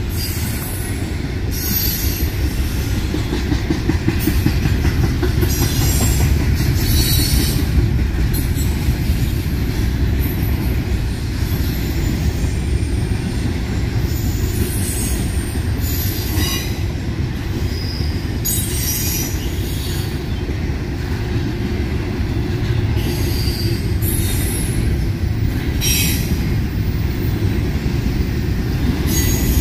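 Double-stack intermodal freight train rolling past: a steady low rumble of the wheels on the rails, with short high-pitched wheel squeals breaking in every few seconds.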